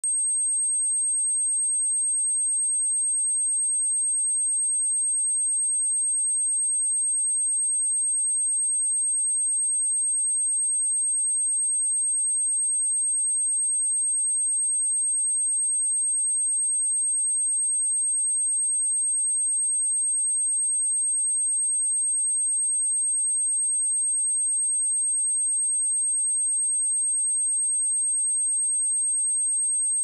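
A pure 8397 Hz sine-wave test tone, one high steady pitch held at a constant level.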